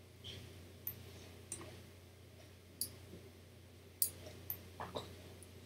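Computer mouse buttons clicking, sharp single clicks spaced irregularly with a quicker cluster of them in the last second and a half, over a faint steady low hum.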